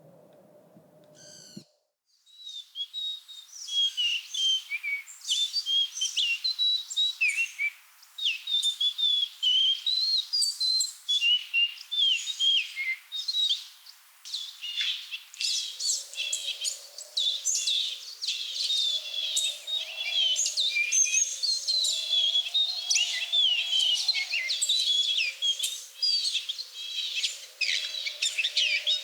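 Birds singing in a busy chorus of many quick chirps and short whistled trills, starting about two seconds in. A faint, steady lower hum joins about halfway through.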